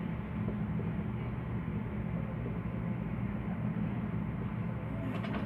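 Steady low hum and rumble of background machinery, with no distinct strokes standing out.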